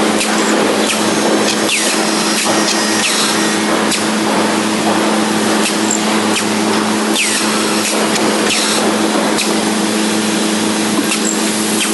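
Automatic angle drilling machine running: a steady motor hum under a loud, even rush of machine noise, with a few faint clicks.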